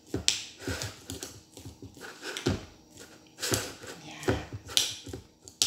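A spoon clicking and scraping against the inside of a glass jar in short, irregular strokes, as fermenting rice and fish (burong isda) are pressed down to force out air.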